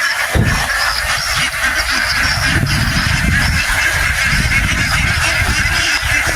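A large flock of domestic ducks quacking together in a dense, continuous chorus. A low rumble runs underneath from about half a second in.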